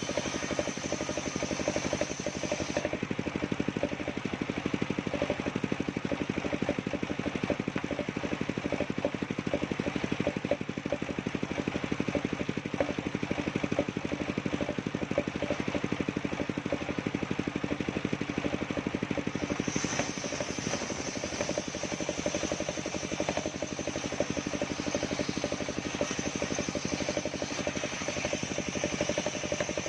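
Engine of a mobile circular sawmill running steadily with a fast, even pulse. A high whine drops away about three seconds in and returns near twenty seconds.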